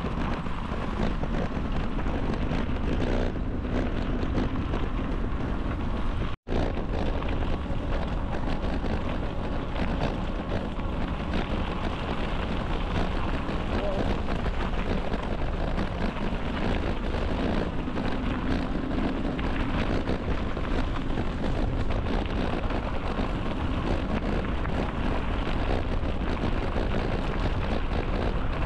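Wind buffeting the microphone while riding a bicycle, a steady rumble and hiss, which cuts out completely for an instant about six seconds in.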